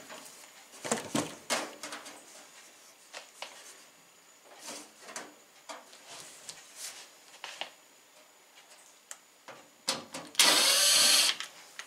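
Scattered light clicks and rattles of screws and the microwave's sheet-metal vent plate being handled. Near the end a cordless drill/driver runs for about a second, backing out a screw at the back of the microwave.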